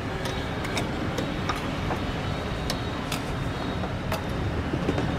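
Steady low rumble of street traffic, with several sharp metal clinks of a ladle and bowls against stainless steel pots.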